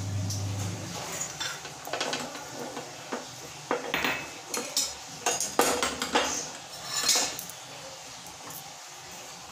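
Metal kitchen utensils and pots clinking and knocking: about a dozen light, irregular strikes.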